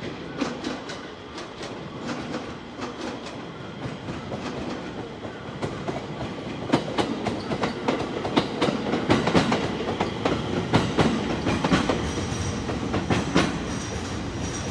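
JR East 701 series electric train pulling out, its wheels clacking in a run of sharp clicks over rail joints and points that grows louder as it passes close by, with a faint high whine near the end.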